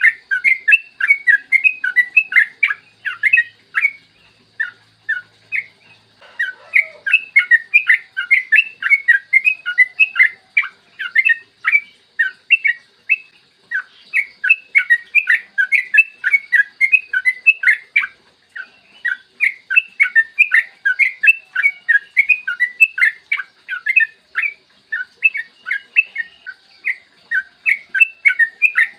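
Sooty-headed bulbul (trucukan) singing a long, fast run of clear chattering notes, several a second, in long bouts broken by short pauses. This is the long rapid 'ropel' song used as a lure to set caged bulbuls singing.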